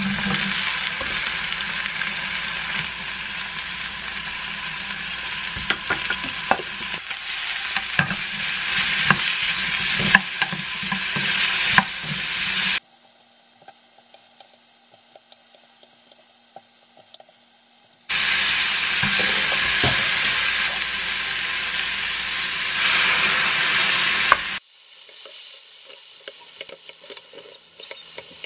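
Chicken breast, onion and minced garlic sizzling as they are stir-fried in a frying pan, with utensils clicking against the pan. The sizzle drops away twice for several seconds, in the middle and again near the end, leaving only faint clicks.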